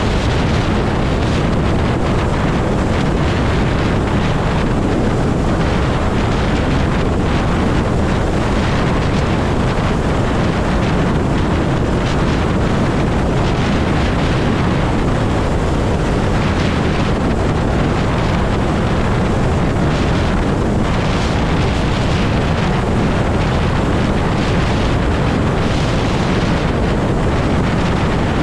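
Wind rushing over a helmet-mounted microphone while riding a Zero electric motorcycle at highway speed, about 66 mph. A steady, loud rush with no engine note.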